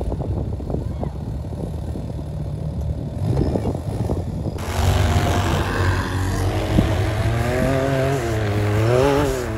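Side-by-side UTV engines running as they push through deep snow. Near the end a Can-Am Maverick X3 revs up and down several times while spinning donuts.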